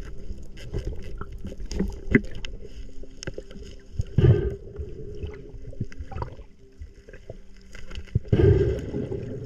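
Water sloshing and gurgling with scattered knocks and clicks, swelling louder twice, about four and eight seconds in.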